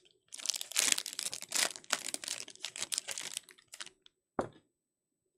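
Foil wrapper of a basketball trading-card pack being torn open and crinkled for about three and a half seconds, then a single sharp click.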